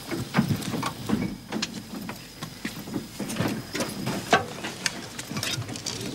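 Irregular knocks and clatter of boots and hands on the steel hull and turret of a Leopard 1 tank as soldiers clamber aboard and into the hatches.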